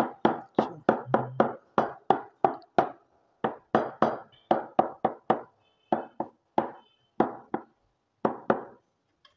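A steel knife tip stabbing through dough onto a wooden board, about three sharp knocks a second with two short pauses, as holes are pricked into a thick disc of mathri dough so that it fries through in ghee.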